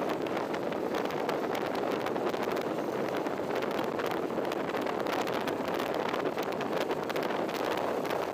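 Steady wind buffeting the microphone of a moving motorcycle, mixed with road noise and no clear engine note.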